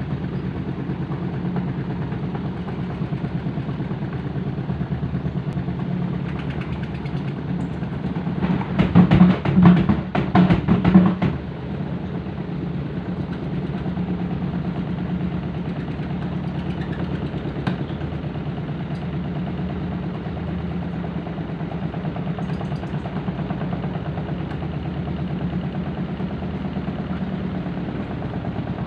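Washing machine on its spin cycle: a steady low hum with a fast rattle as the whole machine shakes, walking across the floor. From about eight to eleven seconds in it bangs loudly, typical of an unbalanced load.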